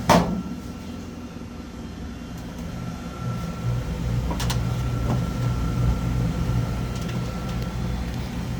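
Steady low motor hum, with a thin high tone through the middle. A sharp click comes at the start and a couple of light clicks about halfway.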